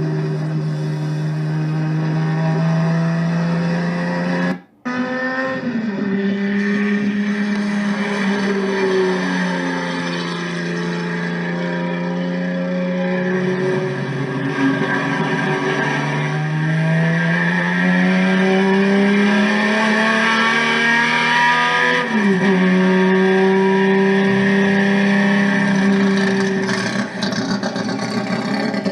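Turismo Carretera race car engine running hard at high revs, its pitch mostly held steady; twice the pitch dips and then climbs again. A brief break in the sound about five seconds in.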